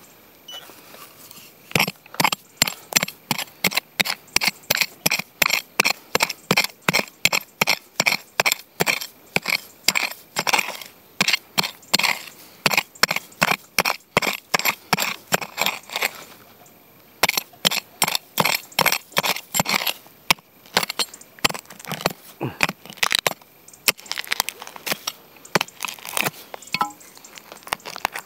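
Dry grass and weeds crackling and rustling in quick, regular strokes, about two to three a second, as a metal detector is worked low over the ground. The strokes break off briefly twice.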